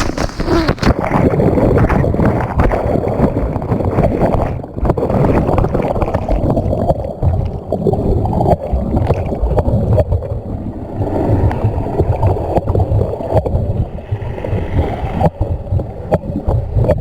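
Water sloshing and gurgling right against the microphone, with a rough, buffeting low rumble throughout.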